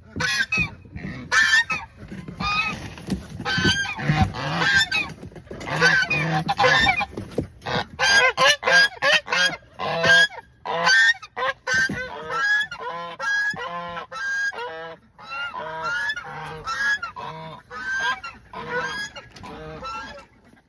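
Chinese geese honking over and over, several birds calling at once in short loud honks.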